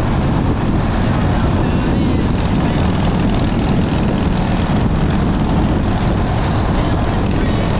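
Motorcycle engine droning steadily under way, mixed with a constant rush of wind noise.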